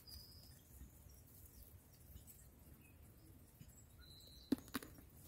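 Near quiet, with a few faint, short, high bird chirps. A couple of sharp clicks come about four and a half seconds in.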